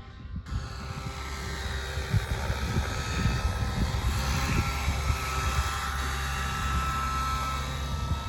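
Radio-controlled scale police helicopter in flight: a steady high motor whine over the low, fluttering rumble of its rotor, growing louder over the first couple of seconds.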